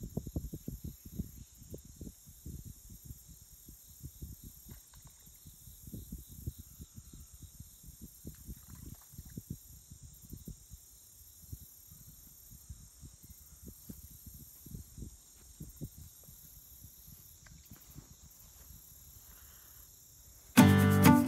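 Insects droning steadily in several high-pitched bands, with irregular low buffeting thumps on the microphone throughout. Near the end, acoustic guitar music starts abruptly.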